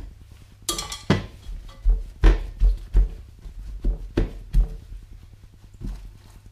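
Paper towels crinkling and being patted and pressed onto a soaked cured beef brisket on a sink draining board to dry it, with a run of dull thumps and rustles as the meat and towels are handled.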